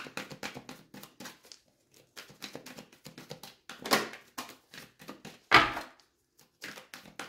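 Oracle cards being shuffled and handled: a run of quick rustling clicks and flicks, with two louder knocks about four and five and a half seconds in.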